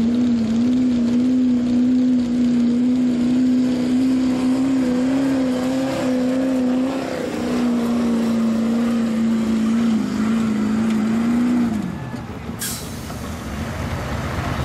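Chevrolet Silverado HD's Duramax diesel V8 held at high revs under full load while pulling a weight-transfer sled: a loud, steady drone that wavers slightly. About twelve seconds in the revs fall away as the pull ends, followed by a single brief sharp sound.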